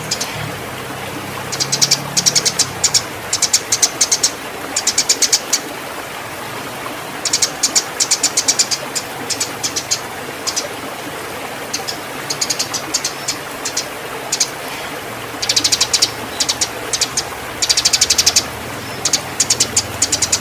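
Eurasian tree sparrow giving rapid chattering chirps in repeated bursts of about a second, the excited fighting calls of a bird in breeding condition, over a steady hiss.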